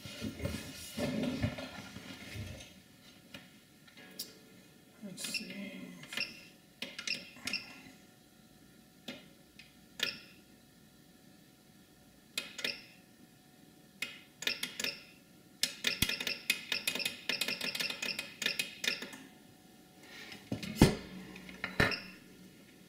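Scattered light clicks and clinks of small objects and tools handled on a workbench. There is a dense crackly run of ticks about two-thirds of the way through, and two louder knocks near the end.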